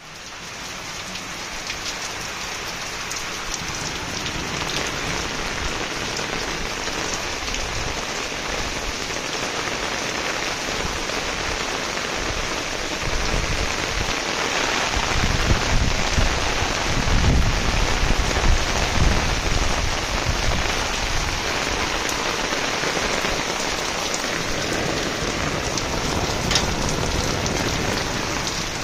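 Heavy rain pouring down steadily in a dense, even hiss of drops, with a low rumble swelling for a few seconds about halfway through.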